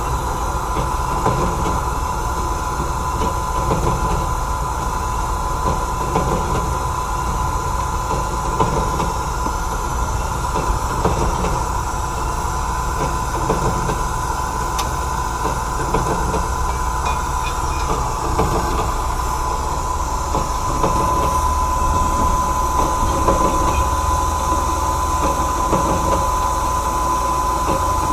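Band saw cutting 304 stainless steel: a steady machine run with a constant high whine over a low rumble, getting a little louder about twenty seconds in.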